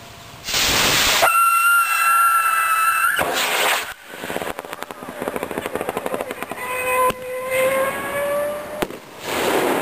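Black powder rocket launching with a sudden rushing hiss, then a steady whistle for about two seconds as it climbs. After a second rush, a fluttering sound with a slowly rising whistle follows, and another burst of hiss comes near the end.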